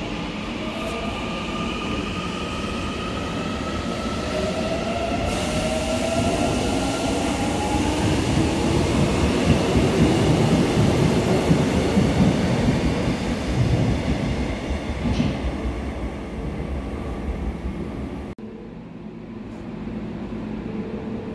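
Seoul Subway Line 8 electric train pulling out of the station. Its inverter and traction motors whine in several tones that rise steadily in pitch as it accelerates, while the rolling noise of the wheels builds, loudest around ten seconds in. Near the end the sound drops suddenly to a quieter steady hum.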